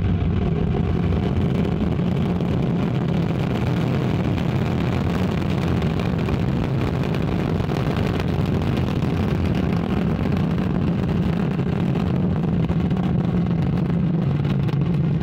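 Ariane 5 ECA rocket lifting off and climbing: its Vulcain main engine and two solid rocket boosters firing together in a steady, deep rumble.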